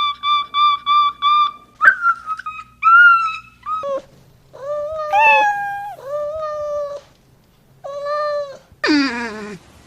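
A domestic animal calling. First comes a quick run of short, high, pitched cries. Then come several longer calls of about half a second to a second each, which hold their pitch and drop at the end. Near the end there is a lower call that falls in pitch.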